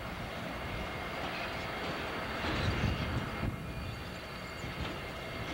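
Diesel locomotive running as it moves slowly past, its engine rumble steady and growing louder for about a second in the middle.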